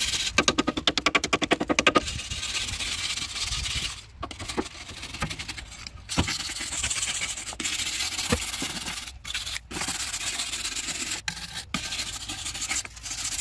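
Hand wire brush scrubbing loose rust off the corroded steel frame rail of a 2006 Dodge Ram 1500. It starts with a fast run of short back-and-forth strokes, about ten a second, then goes on in longer scraping strokes with brief pauses.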